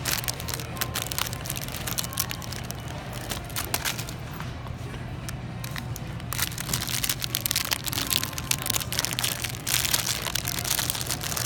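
Clear cellophane candy bags crinkling and crackling as a hand handles them, in irregular bursts that grow louder and denser from about halfway through, over a steady low hum.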